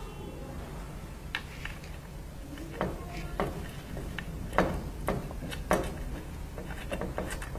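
Scattered light clicks and taps of small parts being handled and fitted as the heating pad's replacement locks go onto a mini 3D sublimation press, over a low steady hum.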